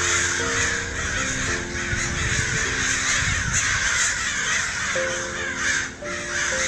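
A dense, continuous chorus of bird calls, as from a large flock, over music with held notes that step from one pitch to the next.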